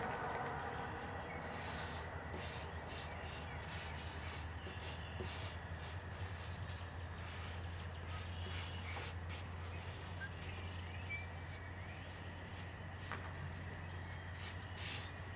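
Charcoal scratching across drawing paper on an easel in quick, irregular strokes: a dry rubbing hiss that comes and goes, thinning out near the end. A steady low hum runs underneath.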